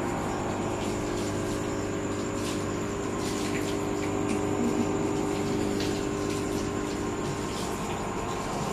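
Aquarium pump humming steadily, with faint bubbling and scattered light ticks.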